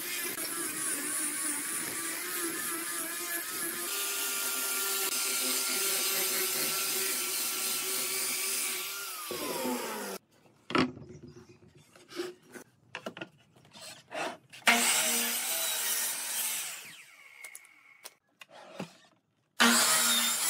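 An angle grinder with a sanding disc runs against wood with a steady whine, then winds down and stops about nine seconds in. A few knocks follow as the wood is handled. Then a motor saw starts sharply, runs and fades, and starts again near the end.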